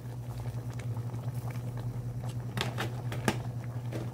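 Pot of mung bean soup simmering, with scattered bubbling pops and crackles over a steady low hum.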